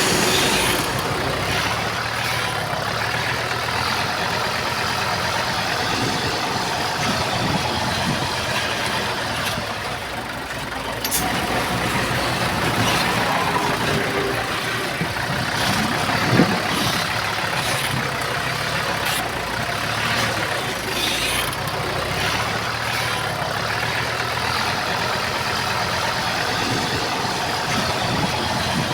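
Diesel engines of heavy earthmoving machinery, a bulldozer and dump trucks, running steadily, with a couple of short metallic knocks partway through.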